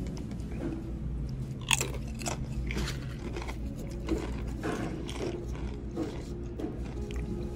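Close-up eating sounds: a crisp tortilla chip bitten with one sharp crunch about two seconds in, then chewed with a run of smaller crunches.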